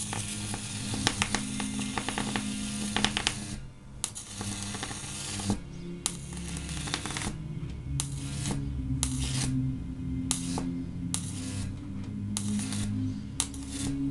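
High-voltage arc from a homemade ZVS-driven flyback transformer (about 5 kV output, drawing around 2 kW), hissing and crackling as it is drawn out into a flame-like plasma. It cuts in and out many times as the arc is broken and struck again.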